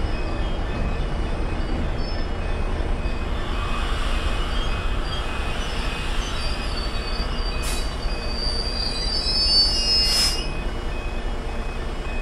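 Diesel freight train running past over a level crossing: a steady rumble of locomotive and wagons, with high wheel squeal for a couple of seconds about two-thirds of the way through. The crossing's warning alarm keeps sounding short, evenly spaced beeps behind it.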